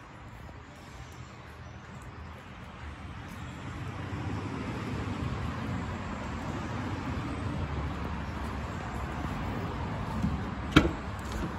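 Low rumble of road traffic, growing louder about a third of the way in, with a sharp click near the end.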